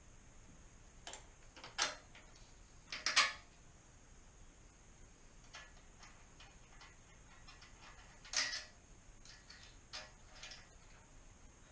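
Scattered clinks and knocks of metal parts being handled and fitted loosely together while a slip-on motorcycle exhaust is mocked up. The loudest come around two and three seconds in and again just past eight seconds.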